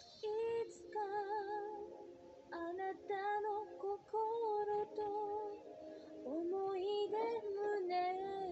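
A woman's voice singing held notes with vibrato over soft backing music, in short phrases.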